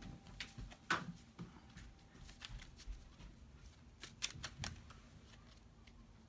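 Tarot deck shuffled by hand: soft card slaps and rustles in irregular bursts, the loudest about a second in and a cluster around four seconds in, fading to faint handling after about five seconds.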